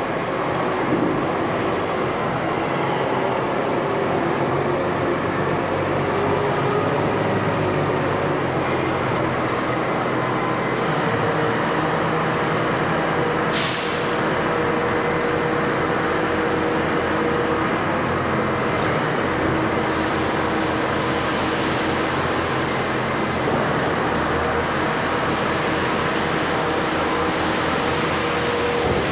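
Heavy diesel farm machinery running steadily at close range, a constant engine drone with mechanical noise. There is a brief hiss about halfway through.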